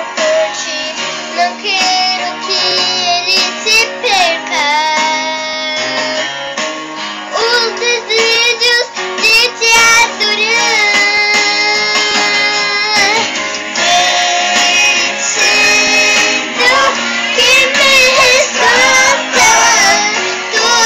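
A girl singing a song over instrumental accompaniment, her held notes wavering with vibrato.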